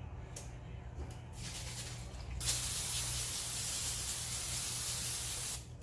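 Aerosol nonstick cooking spray sprayed in one steady hiss of about three seconds, starting about two and a half seconds in.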